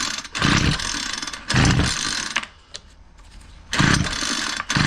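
Homelite 26cc two-stroke string trimmer being pull-started, about four rope pulls in a row, each a brief whirr of the recoil starter and the engine turning over without catching. The engine won't start, which the owner suspects is a bad carburetor.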